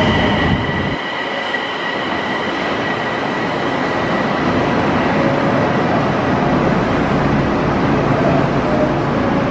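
Osaka Metro subway train running through an underground station: a steady rail rumble that builds slightly, with a high whine that fades away after the first few seconds.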